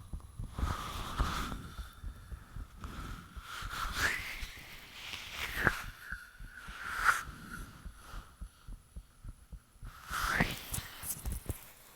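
A person's heartbeat recorded close up: repeated low thuds with a rushing, whooshing noise between them. Four times, a brief high whistling glide rises over it, which the uploader takes for the sound of the heart valves.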